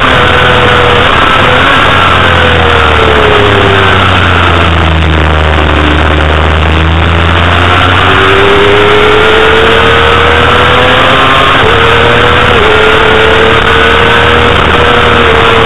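Honda CBR250RR's inline-four engine at high revs under heavy wind noise. The engine's pitch sinks through the middle as the bike slows, then climbs again under acceleration, with a few small jumps in pitch near the end.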